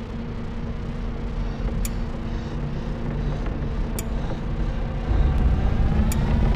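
Ambient drone soundtrack: a low rumble that swells louder, over a steady hum, with a sharp click about every two seconds. Near the end a pitched tone slides up and then back down.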